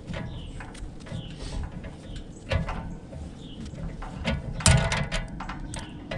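Wrench working the forcing bolt of a gear puller to draw a seized fan blade hub off a condenser fan motor shaft: irregular metal clicks and clinks, with a louder clank about halfway through and the loudest near the end.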